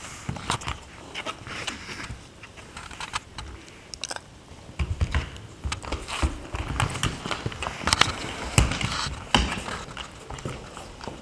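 Irregular clicks, rustles and soft knocks of a cat and a dog moving about on a mat close to the microphone. The sounds grow busier and heavier from about five seconds in.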